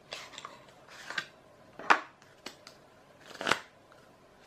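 Cardboard tuck box of a Miracle Playing Cards deck being handled and the cards slid out: a handful of short papery rustles and snaps, the sharpest about two seconds in and again near three and a half seconds.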